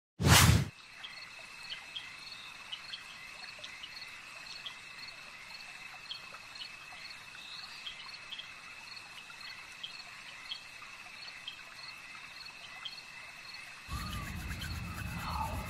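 Night ambience of crickets: a steady high insect trill with small chirps repeating a few times a second, opening with a short loud thump. Near the end a low rumble and a few gliding tones join in.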